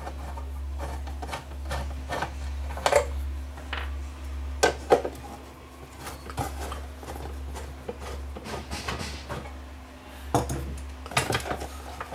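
A screwdriver backing screws out of the underside of a metal radio cabinet, with scattered scrapes and a few sharp knocks as the cabinet shifts on the wooden workbench.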